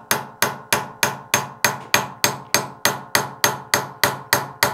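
Steel hammer tapping a pin punch in a steady rhythm, about three strikes a second, each with a short metallic ring: driving the rear sight of a Smith & Wesson M&P Shield pistol slide across its dovetail.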